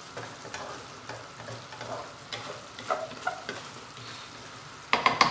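A spatula stirring and scraping chicken liver through thick coconut-milk adobo sauce in a nonstick wok, the sauce sizzling as it cooks down. A few sharp knocks near the end.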